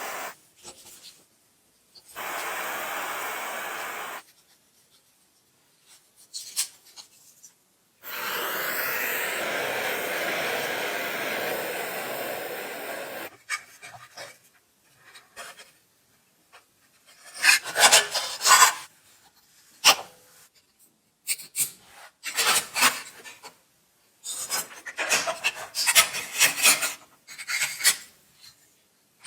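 Wood being rubbed down by hand with an abrasive: two stretches of steady rubbing, then a run of short, uneven rasping strokes in the second half.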